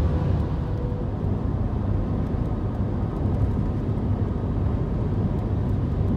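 Steady low rumble of road and engine noise inside a car cruising at speed.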